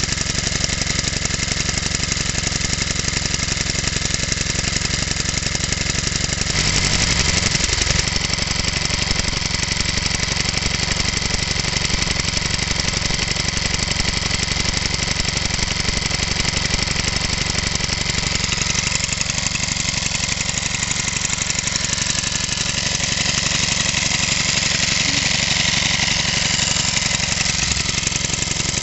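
Small BSA power unit stationary engine running steadily.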